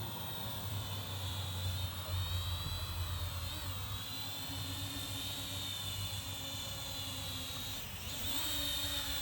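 Small quadcopter drone's electric motors and propellers whining as it flies, a cluster of high tones that rise and fall together as the motors change speed, over a steady low hum.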